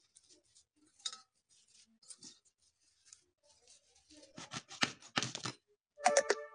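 Bathua and methi greens being cut on a daraat blade: faint rustling of the leaves, then a quick run of crisp slicing strokes a little past halfway. A short metallic clink with a ringing tone comes near the end.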